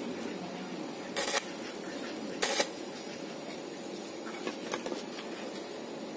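Stick (arc) welder tack-welding a stainless-steel exhaust pipe: two short bursts of arc hiss, each about a quarter second, one about a second in and one about two and a half seconds in, then a few faint ticks.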